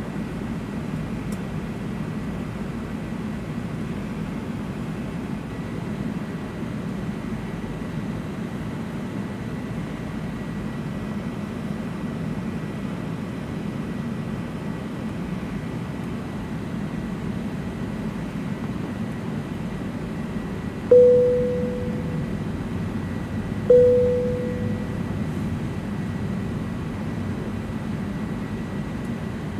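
Steady airliner cabin noise inside a British Airways Airbus A380. About two-thirds of the way through, two single-tone cabin chimes sound, each ringing out and fading, a little under three seconds apart.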